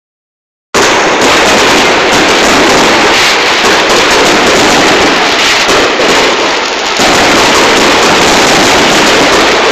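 Aerial fireworks display bursting and crackling in a dense, continuous, loud barrage, starting about a second in.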